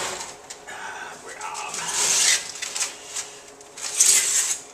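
Kitchen handling noises from a foil-covered casserole dish being handled: rustling and clattering in several irregular bursts, loudest about two seconds in and again near the end.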